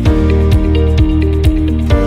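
Background music: light instrumental track with plucked guitar-like notes over a steady beat of about two kicks a second.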